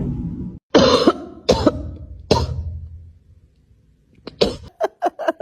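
Three sharp coughs in quick succession, each fading out, followed near the end by a quick run of shorter, smaller sounds.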